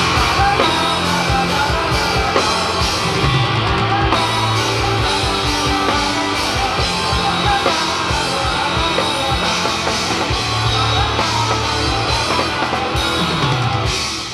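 Rock band playing live: drum kit, guitars and bass in an instrumental passage of a song, dropping away sharply near the end.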